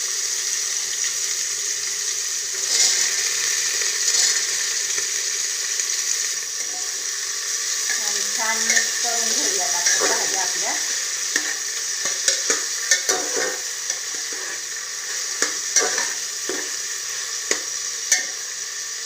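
Chopped vegetables sizzling in oil in an aluminium pressure cooker as a steel spoon stirs them. The spoon clicks and scrapes against the pot, more often in the second half.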